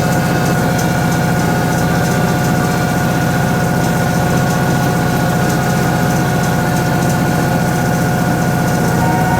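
Toshiba ZABOON top-loading washing machine running, a steady motor hum with a constant higher whine over it.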